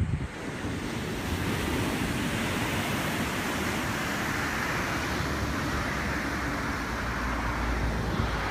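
Small surf breaking and washing up the beach: a steady rushing wash over a low rumble, swelling a little after the first couple of seconds.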